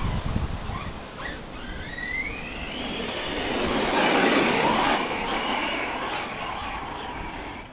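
Electric motor and drivetrain of an Absima Torch Gen 2.0 RC car whining as the car accelerates; the whine rises in pitch for a few seconds, peaks, then falls away. Wind buffets the microphone.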